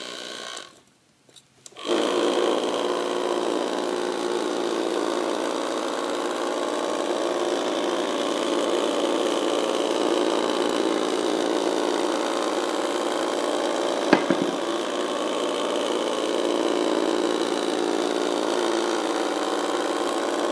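4M Doodling Robot's small motor with an off-centre weight running steadily, shaking the toy so that it skitters across paper on its three marker-pen legs. The sound starts about two seconds in, after a moment of near silence. A single sharp click comes about fourteen seconds in.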